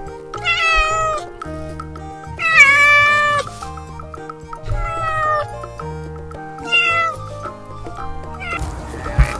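A cat meowing four times, each meow sliding down in pitch at its end, the second one the longest and loudest, over soft background music.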